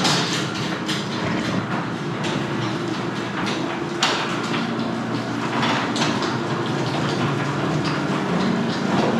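LiftMaster garage door opener running the door through its full travel: a steady motor hum with the door rattling and clattering as it moves. The opener is working again after a replaced control board restored its power.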